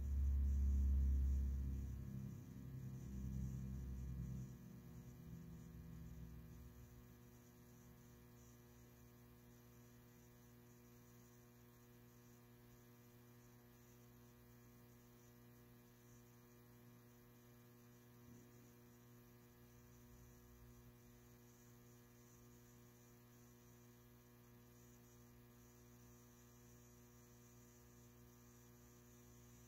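Steady electrical mains hum, with a low rumble over the first few seconds that fades away by about six seconds in.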